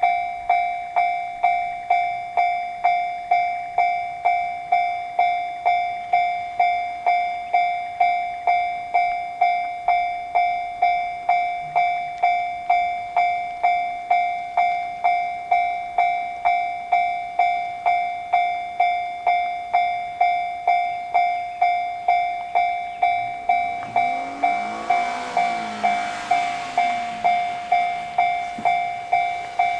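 Japanese level-crossing warning bell ringing 'kan-kan' in an even, unbroken rhythm of repeated dings. About 24 seconds in, a train's running noise builds up under the bell, with gliding pitches as it approaches, and it grows loud near the end.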